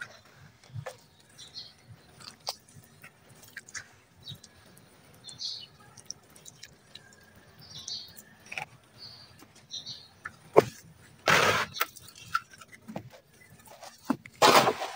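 Wet red dirt being worked, with scattered small crunching clicks and two louder rushing bursts near the end; birds chirp in the background.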